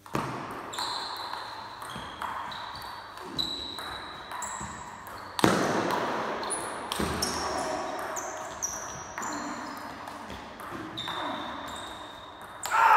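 Table tennis rally: the ball knocking back and forth off the bats and the table in quick succession, each hit ringing briefly and echoing in a large sports hall. The loudest hit comes about five and a half seconds in.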